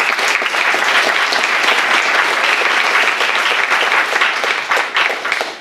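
Audience applauding: a dense, steady clatter of many hands clapping that starts to die away near the end.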